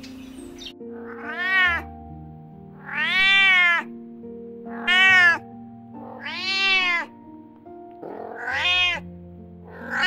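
Domestic cat meowing five times, about every two seconds, each meow rising then falling in pitch, over background music.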